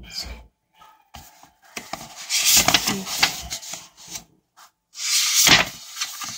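Paper rustling as the pages of a softcover book are handled and turned by hand, in two main bursts about two and a half and five and a half seconds in.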